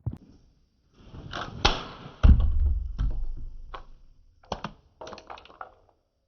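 Knocks, clicks and plastic clatter from a toy remote-control car controller being handled, with a heavy thump a little over two seconds in and a run of sharp clicks near the end.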